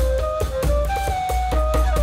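Background music: a held, gliding melody line over drums and a deep bass.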